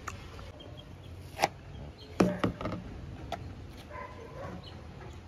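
A few sharp knocks and clatters of hard objects: a single knock about one and a half seconds in, then a quick cluster of three just after two seconds, with low background noise between.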